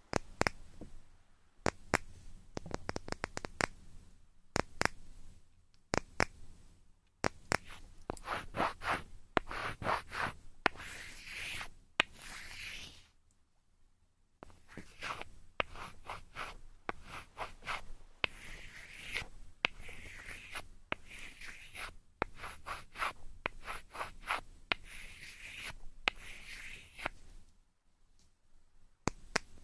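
Close scratching, rubbing and quick clicks on or against a microphone, in irregular runs with two short pauses: ASMR trigger sounds of the ear-cleaning kind.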